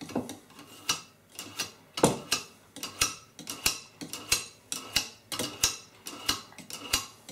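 A kitchen knife drawn again and again through a Vulkanus knife sharpener, each pull a short metallic scrape, about two to three a second: the blade being sharpened.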